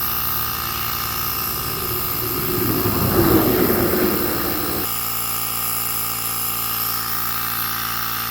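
Steady buzzing hum of a small motor, with a louder rushing swell from about two seconds in that cuts off sharply about five seconds in.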